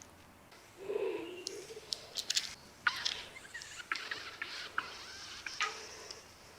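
Stomach growling: a short, wavering low gurgle about a second in, followed by scattered small pops, squeaks and crackles of gurgling.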